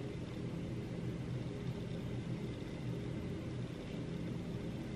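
Steady low background hum with a few constant low tones, unchanging throughout.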